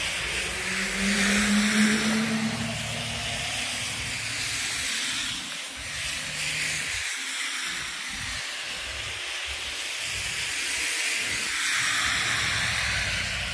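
Vehicles passing on a wet, snowy street, with a hiss of tyres that swells and fades as each one goes by, three times. The first carries an engine hum at the start.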